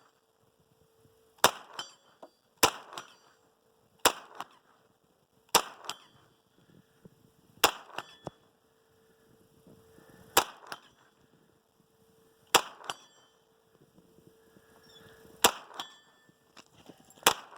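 Gunshots from a gun fired repeatedly, about nine sharp single shots spaced every two to three seconds, with a faint steady tone underneath.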